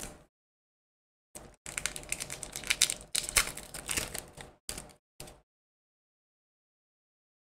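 Foil wrapper of a Pokémon Evolving Skies booster pack crinkling and tearing open by hand: a run of quick crackles starting about a second and a half in and stopping a little past halfway.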